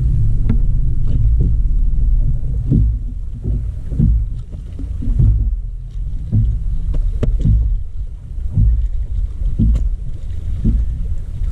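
Wind buffeting the microphone on an open boat deck: a loud low rumble that swells and drops in uneven gusts.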